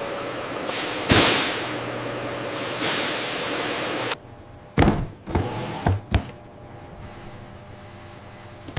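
Steady mechanical hum with several whooshing sweeps, the loudest a little after one second in; about four seconds in it cuts off suddenly, and a few sharp clicks and knocks follow over a quieter background.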